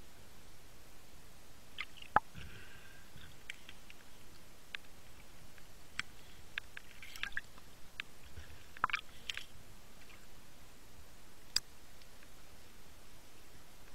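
Underwater sound in shallow rocky sea: a steady hiss with scattered sharp clicks and knocks, the loudest about two seconds in, and a few short crackles.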